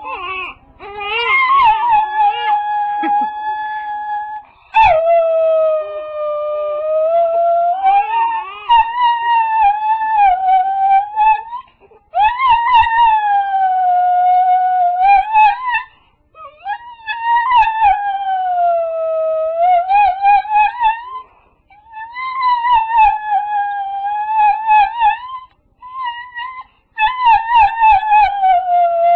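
A dog howling in a series of long, wavering howls, each lasting several seconds, with brief pauses between them.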